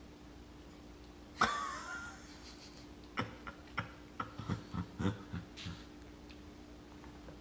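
A toddler's mouth and voice sounds while she eats spaghetti with her fingers at her mouth: one short, sharp squeak about a second and a half in, then a quick, uneven run of about ten soft short mouth sounds in the middle.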